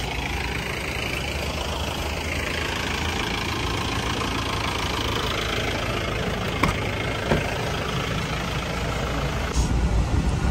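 Mahindra Bolero's diesel engine idling steadily, with two light clicks a little past halfway and the low hum getting a little louder near the end.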